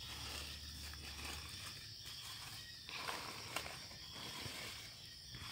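Faint outdoor ambience with a steady high hiss, and a few light rustles and clicks in dry leaf litter from about three seconds in.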